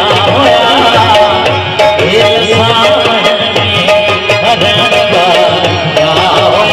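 Live Sindhi folk music: a hand drum keeps a steady beat under a bending, ornamented melody.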